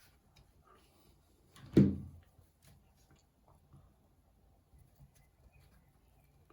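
Hands working parts loose inside a 3rd-generation Amazon Echo smart speaker during disassembly: faint plastic clicks and scrapes, with one dull thump about two seconds in.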